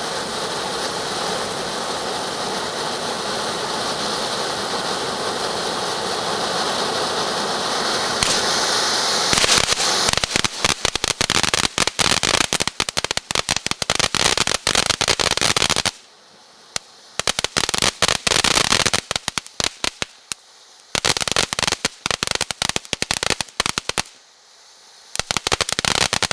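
A ground fountain firework spraying with a steady hiss, then from about ten seconds in a rapid crackle of many small pops that comes in runs, with two brief pauses.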